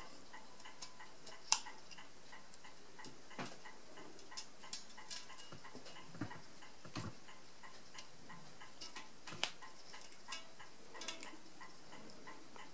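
Small irregular metallic clicks and ticks from the carriage of an Addo Multo Model 3 mechanical calculator as detent-lever springs are hooked into place by hand, the steel levers and springs snapping against the frame. The sharpest click comes about a second and a half in.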